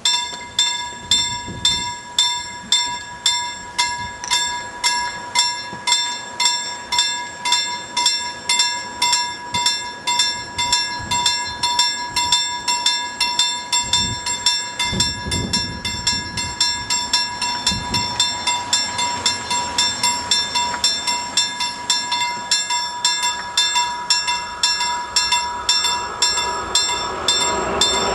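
Level-crossing warning bell ringing steadily at about two strokes a second, starting as the warning lights come on. Near the end, an approaching train grows louder underneath.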